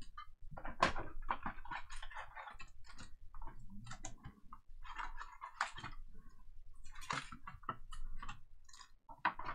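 A cardboard trading-card box being opened by hand and its foil-wrapped packs lifted out and stacked: an irregular run of small clicks, taps and crinkles.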